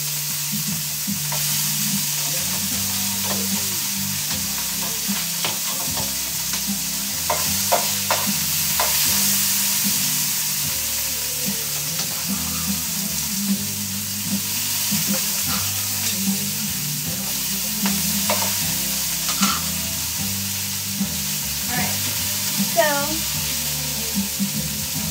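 Blanched haricots verts frying in hot oil in a pan: a steady sizzle with scattered crackles.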